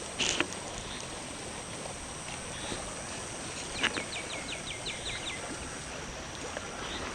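A bird calls once midway, a quick run of about eight short notes, each falling in pitch, over a steady outdoor hiss.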